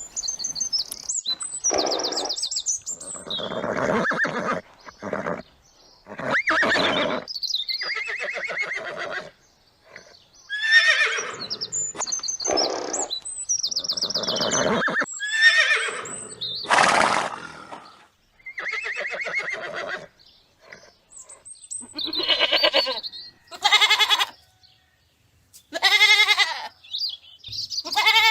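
Farm livestock calling: a series of about a dozen separate cries, each roughly a second long, with short pauses between. Near the end the cries rise and fall in pitch like bleats.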